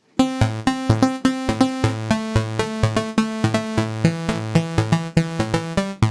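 Synthesizer pluck patch, set with a short decay and low sustain to imitate a plucked string, playing a fast melodic pattern of about four notes a second. Each note starts sharply and dies away quickly.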